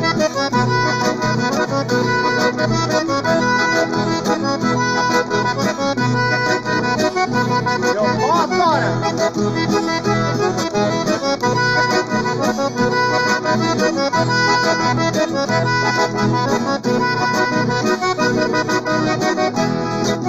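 Instrumental break in a gaúcho country song: a piano accordion plays the melody, with two acoustic guitars strumming the accompaniment.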